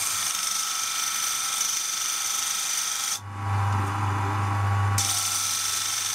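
A metal part of a Cold Steel Ti-Lite folding knife being ground on the coarse sanding disc of an electric bench grinder, a steady rasping hiss, as its stops are ground off. For about two seconds in the middle the part is lifted off and only the grinder motor's low hum is heard, then grinding resumes.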